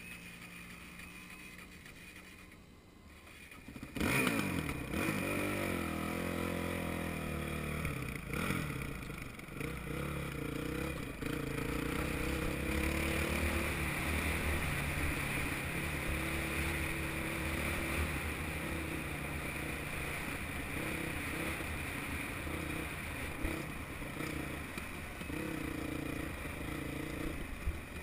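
Dirt bike engine idling low for about four seconds, then pulling away suddenly, its revs rising repeatedly as it accelerates, and then running steadily at speed with gravel and rattle noise.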